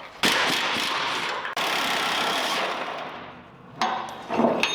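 Pneumatic impact wrench hammering a rusted truck-bed bolt loose, in two long bursts and a short one near the end.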